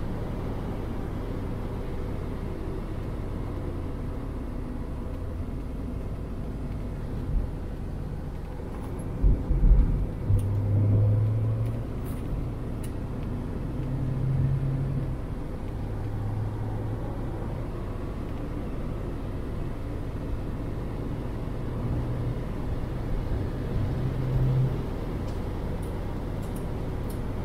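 2001 Mazda MX-5 1.8's four-cylinder engine running at moderate revs, its note stepping up and down in pitch, over a steady rush of wind and road noise. A few heavy low thumps about nine to ten seconds in.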